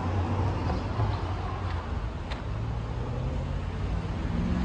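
Road traffic with a motor vehicle engine running close by, a steady low hum over the noise of the street.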